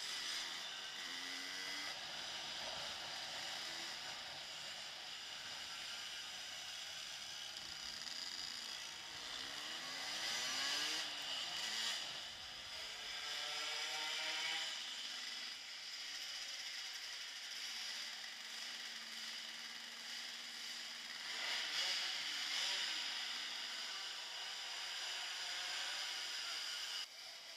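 Motorcycle engine running as the bike rides slowly, picked up by a helmet-mounted camera along with a steady mechanical rattle. The engine pitch rises and falls a few times around the middle.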